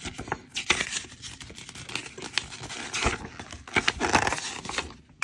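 Paper rustling and crinkling as a folded installation manual is handled and unfolded, in an uneven run of rustles and crackles.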